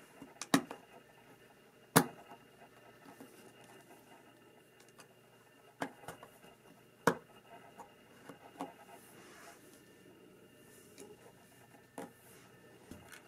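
Lego Technic plastic parts being handled and pressed together, giving a handful of sharp, separate clicks and snaps; the loudest come about half a second and two seconds in, with others spread through the rest.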